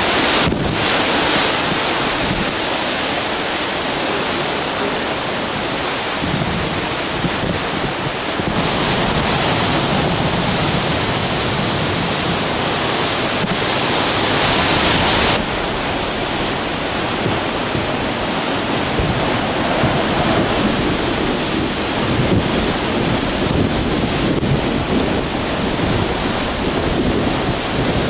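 Hurricane-force wind and wind-driven rain, a steady rushing noise with wind buffeting the microphone. The hiss grows brighter about eight seconds in and drops suddenly at about fifteen seconds.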